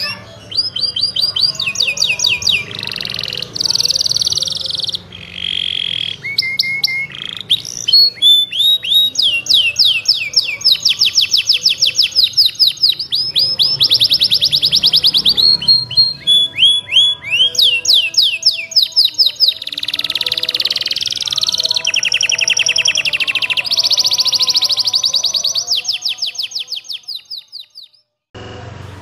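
White domestic canary singing a long, continuous song of fast trills: runs of rapid repeated high chirps, some phrases sweeping down in pitch, joined by short rolling notes. The song fades away near the end.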